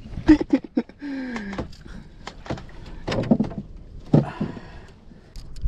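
Irregular knocks and thumps against a small outrigger fishing boat as a freshly caught fish is handled, with a short falling hum about a second in.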